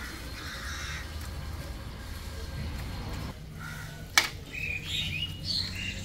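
A single sharp knock about four seconds in, then a bird calling several times in short caws over a steady low hum.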